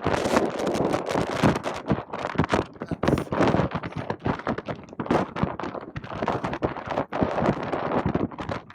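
Strong gusty wind buffeting the microphone, with many sharp irregular cracks and thumps.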